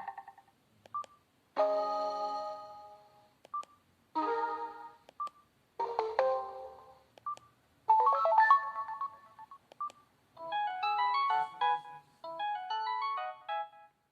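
Samsung Solid Xcover 2 phone's speaker playing its preloaded message alert tones one after another: six short chiming tones a second or two long, most ringing away, the last two quick runs of notes. A short beep comes before most of them.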